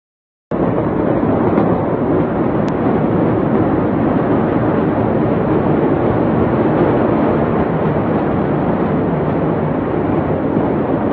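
Loud, steady rushing rumble on a phone recording, starting suddenly about half a second in, with no separate bangs or voices.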